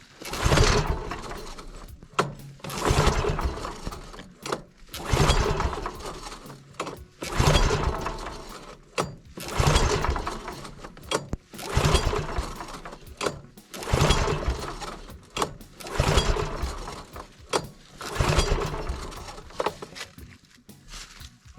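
Small gasoline engine on a Norwood Lumbermate sawmill being pull-started over and over, about nine hard pulls a couple of seconds apart, each dying away without the engine catching. It will not start because water has got into its gas tank and carburetor.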